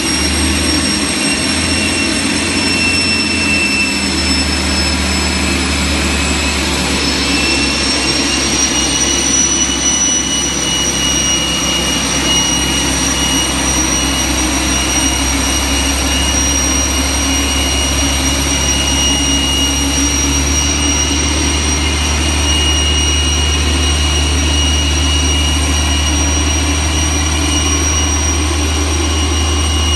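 Boeing 747-400 at the gate with its turbines running: a loud, steady jet whine with high whistling tones over a low rumble. The whine sags slightly and climbs back about eight seconds in, then holds steady.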